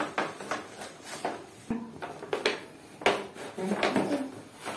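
Cardboard toy box with a plastic window being handled and opened: a string of scrapes, taps and knocks as flaps and the inner tray are pulled about, with the sharpest knock about three seconds in.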